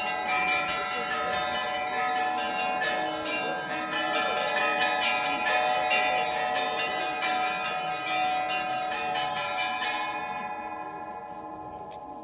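Orthodox church bells ringing an Easter peal: many bells struck in quick succession, a dense clangour of overlapping tones. About ten seconds in, the striking stops and the bells ring on, fading away.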